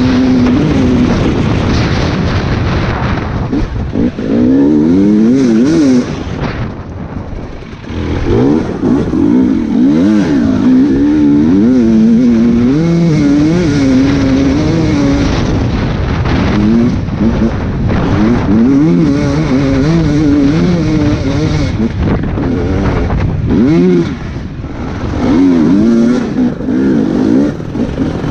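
Dirt bike engine under hard riding, its revs rising and falling constantly as the throttle is worked over rough ground. It eases off twice, briefly.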